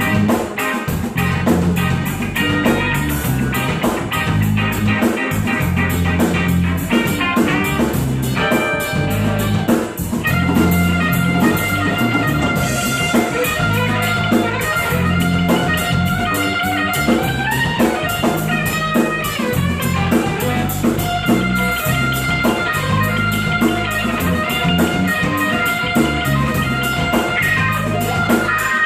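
A live rock band plays an instrumental passage: a guitar lead with held, bending notes over bass and a drum kit keeping a steady beat.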